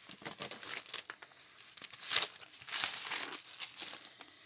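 Packaging crinkling and rustling as it is handled, in irregular bursts, the loudest about two and three seconds in.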